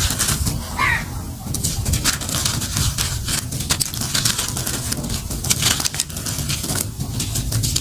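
Hands squeezing and crushing dry, crumbly gray molded chunks, a steady gritty crunching and crackling as the pieces break apart and powder pours out.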